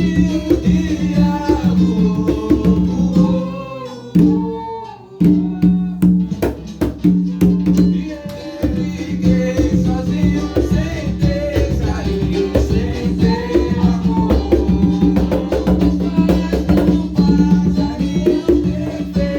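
Music led by conga drums played by hand in a quick, steady rhythm over a backing band. About four seconds in the music thins out and drops in level for a second, then the full groove returns.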